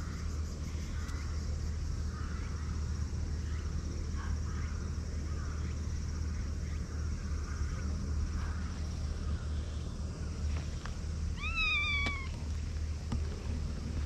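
A cat meows once, a single drawn-out meow that rises and then falls slightly, a little past the middle, with a few faint short calls before it. A steady low rumble runs underneath.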